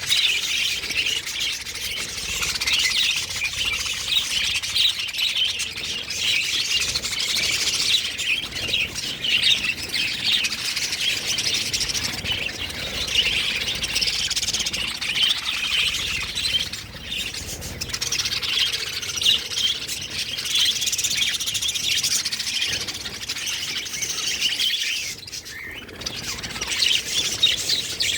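Many small pet parrots chirping and twittering over one another in a dense, continuous chatter, easing briefly near the end.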